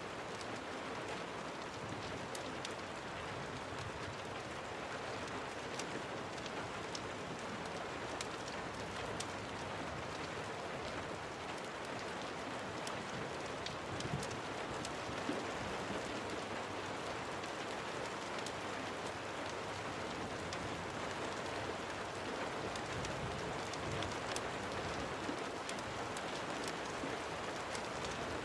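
Steady rain, an even hiss of falling drops dotted with scattered sharp clicks, a couple of them a little louder about halfway through.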